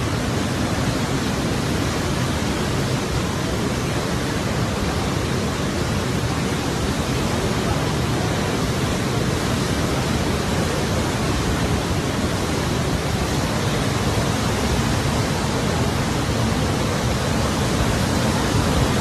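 Fast-flowing floodwater rushing in a steady, unbroken torrent.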